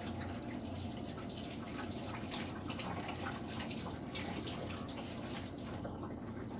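Kitchen tap running into a sink, with water splashing as hands are washed under it.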